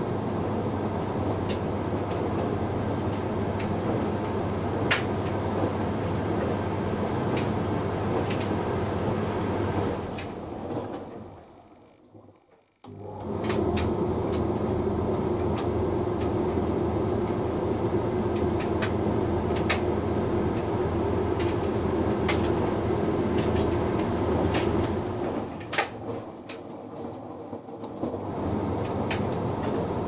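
Hoover Link X Care condenser tumble dryer running: a steady motor and fan hum with occasional light clicks. About ten seconds in it winds down almost to silence, starts up again sharply a few seconds later with a stronger hum, and dips briefly once more near the end.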